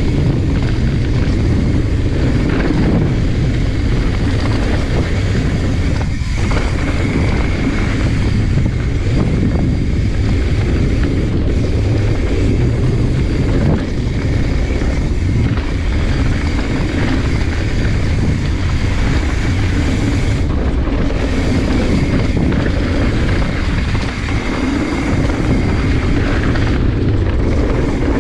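Mountain bike descending a rough dirt trail at speed: steady wind rush on the microphone mixed with tyre rumble and rattle over the dirt and rocks.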